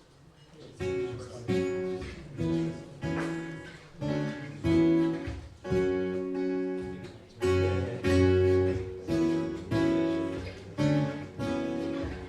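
Acoustic guitar strumming chords in a steady rhythm; it comes in about a second in.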